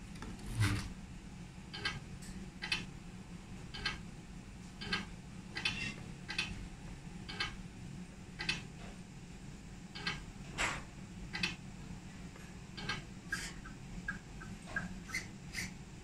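Light clicks and taps, about one a second, from hands handling a 1/14 scale RC tractor truck and its radio transmitter, over a steady low hum. Near the end the clicks come quicker and lighter, about three a second.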